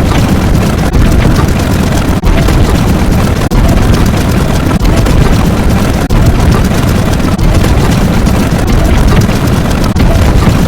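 Loud, dense, rumbling sound-effect noise with a heavy bass, changing in short segments of about a second and a quarter each, with a brief dip between segments.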